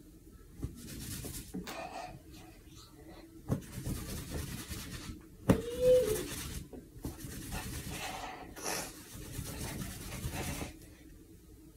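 A towel rubbed over long wet hair, in irregular scrubbing strokes. About halfway through there is a sharp click, then a short pitched sound, the loudest moment.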